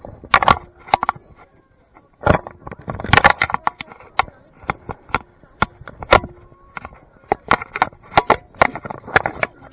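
Irregular clicks, knocks and scraping from a dog-worn camera being rubbed and bumped against the dog's harness, collar and leash as people handle the dog.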